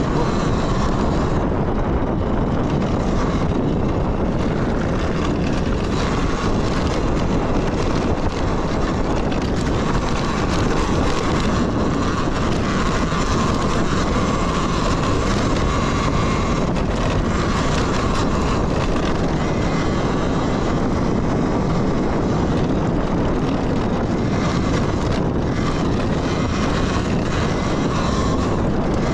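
Talaria Sting electric dirt bike being ridden on a trail: a steady rush of wind and tyre noise, with a faint motor whine that comes and goes.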